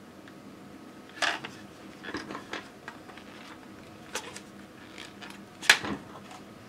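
Scattered sharp plastic clicks and knocks from a 12A laser toner cartridge being handled and tapped to empty out old toner: one about a second in, a few more around two seconds, and the loudest near the end.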